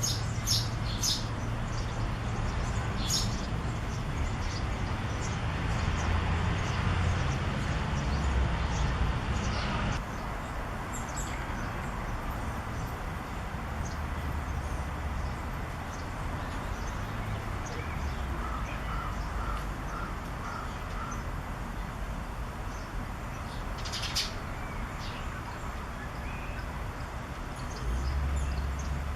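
Eurasian tree sparrow nestlings calling in short, high, scattered chirps, thickest in the first few seconds and again about a third and four-fifths of the way through. A steady low rumble runs underneath.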